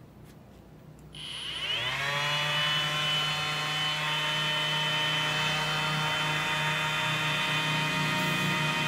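Bosch GEX 18V-125 cordless random orbital sander with a brushless motor switched on about a second in. It winds up in pitch over about a second, then runs steadily, sanding a wooden board.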